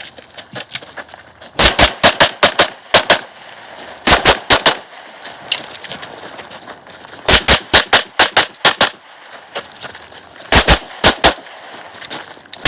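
Rapid pistol fire from a Glock 34 open-division competition pistol: four quick strings of shots, roughly four to eight each, with pauses of one to two seconds between them.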